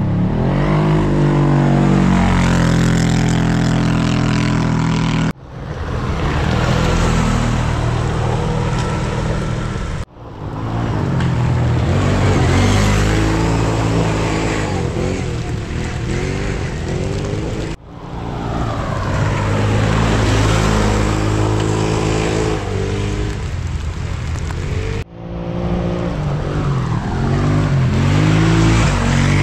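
Engines of 1000 cc-class ATVs (quad bikes) revving hard under racing load, their pitch rising and falling. The sound comes in several short stretches joined by abrupt cuts.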